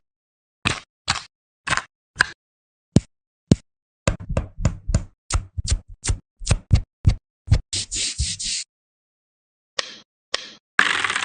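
Sharp, separate clicks and knocks from a keyboard: spaced out at first, coming quicker, about two a second, from about four seconds in. A short rasping noise follows for under a second, then a pause of about a second and a dense run of clicks near the end.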